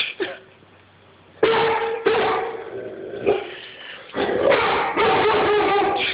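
Dog barking repeatedly at a man on the television screen, a protective alarm bark. After a quiet first second or so, there is a string of about half a dozen loud barks.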